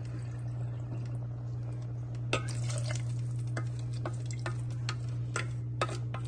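Wooden spoon stirring a thin, watery pea masala in a stainless steel pressure-cooker pot. From about two seconds in, irregular knocks and clicks come as the spoon hits the pot's side, over a steady low hum.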